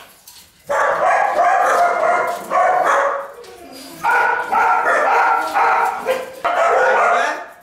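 Pug whining and yelping in a run of high-pitched cries, each lasting under a second, with a short pause about three seconds in.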